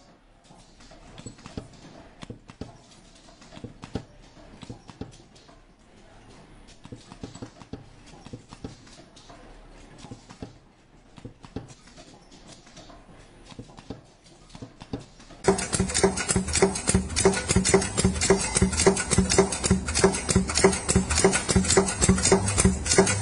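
Faint scattered clicks and taps of work on an ultrasonic spot welding machine. About fifteen seconds in, a loud, fast, evenly repeating mechanical clatter with a steady low hum suddenly sets in.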